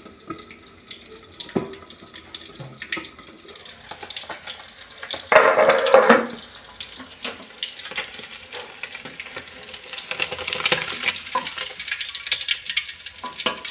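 Pindang fish frying in hot oil in an aluminium wok, a steady sizzle that grows louder in the second half as the fish are worked with a slotted spoon and a spatula. A loud clatter comes about five seconds in.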